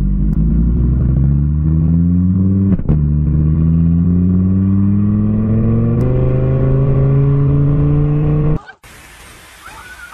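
An engine accelerating, its pitch climbing and dropping back at two gear changes, about 3 and 6 seconds in. It cuts off near the end and gives way to a quieter steady hiss of heavy rain.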